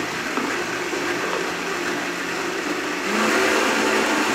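Vitamix blender motor running steadily, pureeing thick roasted pumpkin pulp with no water added. About three seconds in, its pitch steps up and it gets louder.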